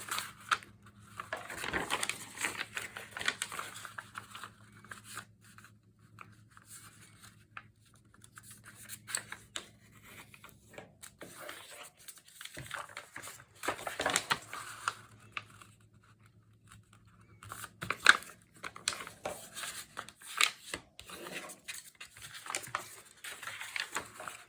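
Hand-dyed paper sheets being handled and folded: irregular rustling, sliding and crinkling of stiff paper, with louder swishes about two seconds in, around the middle and about three-quarters of the way through.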